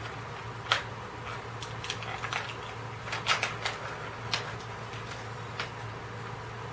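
Snack packaging being opened and handled, giving scattered crinkles and crackles. The sharpest comes about a second in and a quick cluster follows around three seconds in.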